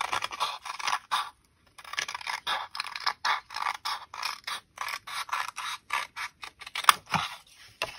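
Scissors snipping through paper in a quick run of short cuts, pausing briefly about a second and a half in, with one sharper click near the end.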